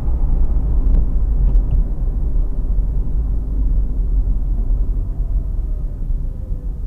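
Steady low rumble of a car driving, engine and tyre noise heard inside the cabin, with a faint note that falls slowly in the second half.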